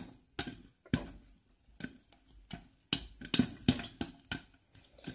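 Popcorn kernels popping inside a covered stainless-steel saucepan with a glass lid, in sharp, irregular pops that come thicker near the end. These are the last kernels popping after the heat has been switched off.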